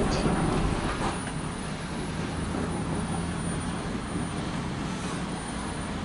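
Loaded double-stack freight train rolling past, a steady low rumble of wheels on rail.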